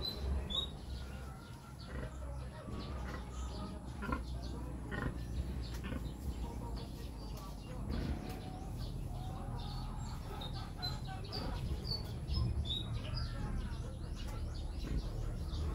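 Rural backyard ambience: small birds chirping in short high calls scattered throughout, with chickens clucking, over a steady low rumble.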